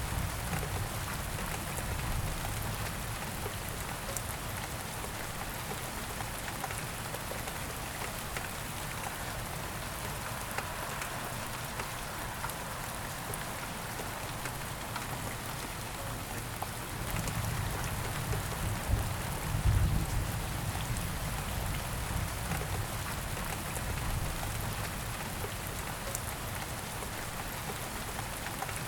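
Steady rain falling and pattering on a surface. A low rumble swells briefly about two-thirds of the way through.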